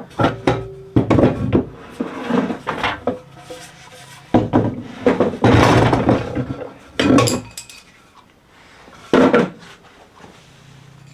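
Wooden boards being picked up and handled, knocking and clattering in several irregular bursts.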